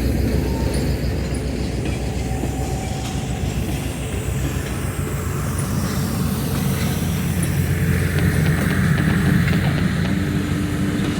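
Moving train heard from on board: a steady low rumble of the wheels on the rails, with a few faint clicks and a steady low hum coming in near the end.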